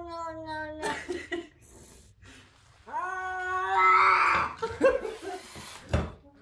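Frightened cat giving long, drawn-out warning yowls: one ends about a second in, another starts about three seconds in and breaks into a hiss. A single thump near the end.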